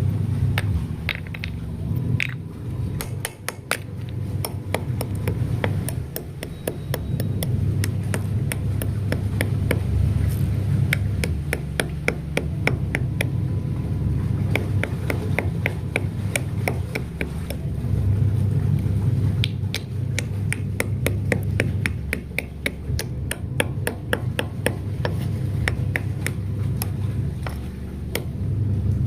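Many sharp taps and clicks, irregular and at times in quick runs, over a steady low hum.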